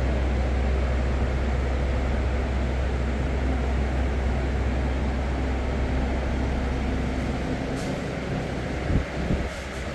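A steady low machine hum and rumble, with a brief louder knock about nine seconds in, after which the deep hum drops away.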